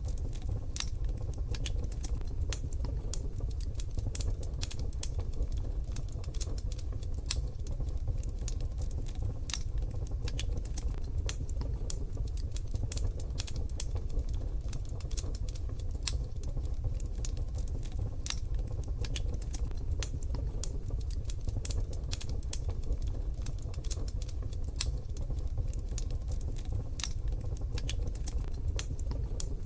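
Wood fire crackling in a wood-burning stove: frequent, irregular sharp pops and ticks over a steady low rumble.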